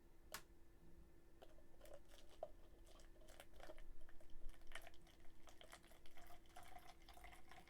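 Hot water being poured into a disposable cup holding alum powder: faint trickling and splashing with light clicks, the filling tone steadying near the end.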